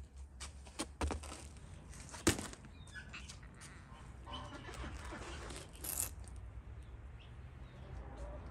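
Yard ambience with birds calling faintly and a few sharp knocks and clicks, the loudest about two seconds in.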